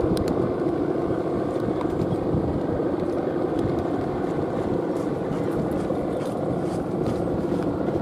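Steady droning hum of the hummer bows (guangan) on big Balinese kites in flight, with a rumble of wind on the microphone beneath it.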